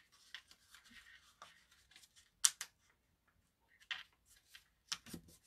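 A sheet of paper being folded and creased with the fingertips on a tabletop: soft rustles and crinkles, with sharper crackles about two and a half, four and five seconds in.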